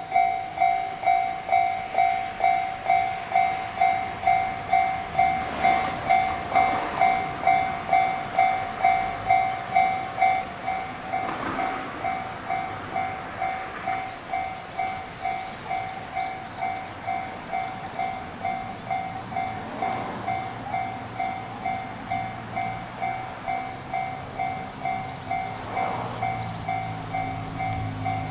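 Japanese railway level crossing's electronic warning bell ringing steadily, about two strikes a second: the signal that a train is approaching. The bell drops to a lower volume about ten seconds in, and a low rumble starts to build near the end.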